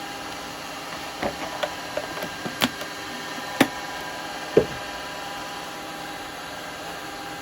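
Steady hum of a wood lathe running, with a series of light knocks and clicks from handling things about a second in, the two loudest knocks near the middle.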